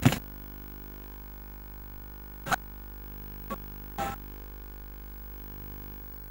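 Steady electrical hum in the recording, broken by four short sharp knocks. The loudest knock comes right at the start, and three fainter ones follow in the middle.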